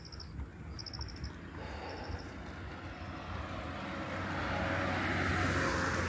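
A vehicle passing, its noise swelling to a peak about five seconds in and fading, over a steady low rumble. A few short high chirps in the first two seconds.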